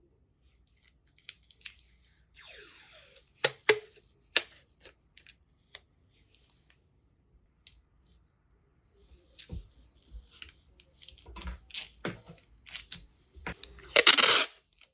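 Paper and tape being handled in close-up: scattered sharp taps and clicks, bursts of rustling, and a loud tearing rip about fourteen seconds in.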